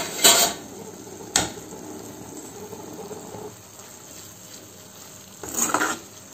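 Fenugreek-leaf and tomato curry sizzling in an aluminium kadai while a metal spatula stirs it, with a few sharp knocks and scrapes of the spatula against the pan, the sharpest about a second and a half in.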